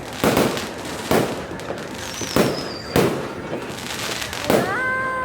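New Year's Eve fireworks and firecrackers going off: about five sharp bangs roughly a second apart over continuous crackling, with a short falling whistle near the middle. Near the end a held horn-like tone starts and drops in pitch as it fades.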